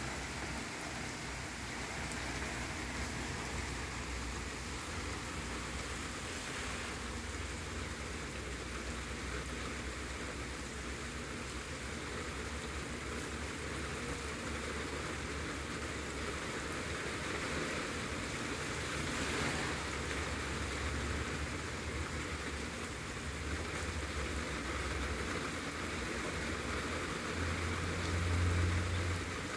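Steady rain falling outdoors, with a low rumble underneath that swells near the end.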